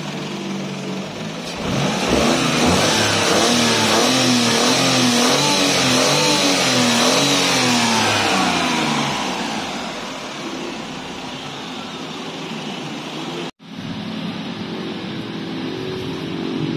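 Perodua Viva 1.0's three-cylinder engine, freshly overhauled, running and revved up and down several times before settling back to a steady run. The sound cuts out abruptly for an instant near the end.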